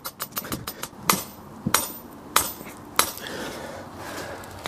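Hand hammer driving an earth rod into the ground, metal on metal: a quick run of rapid strikes for about a second, then four louder, slower blows about half a second apart before it stops.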